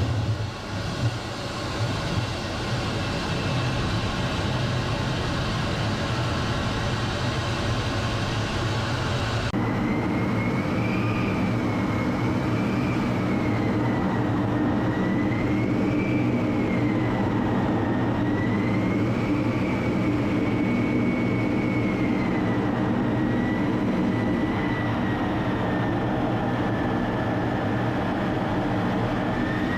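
Jet engines running steadily. About ten seconds in the sound cuts abruptly to another take, where a high turbine whine wavers slowly up and down over a steady low rumble.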